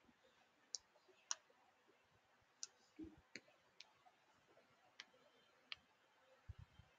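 Near silence broken by faint, sharp clicks at irregular intervals, about seven in all, and two soft low thumps: small clicks at a computer desk.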